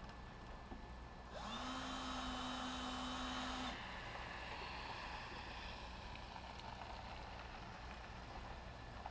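Cordless drill spinning up and running steadily for about two seconds as it bores a hole through the motorhome's rear wall, stopping suddenly.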